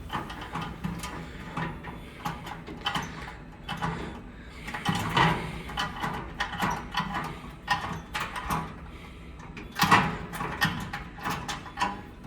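Edwards fire alarm panel's cabinet being handled: a run of irregular mechanical clicks, knocks and rattles, loudest about five seconds in and again near ten seconds.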